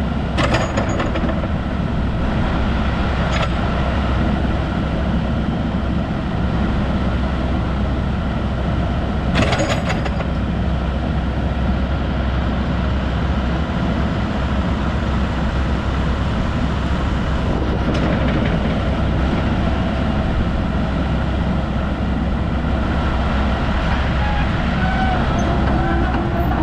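Komatsu PC78US-10 hydraulic excavator's diesel engine running steadily with a deep rumble, with a few sharp clanks from the machine, the loudest about half a second and nine and a half seconds in.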